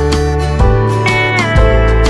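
Instrumental background music: a sustained melody over low bass notes that fall about every half second, with one note sliding down in pitch about one and a half seconds in.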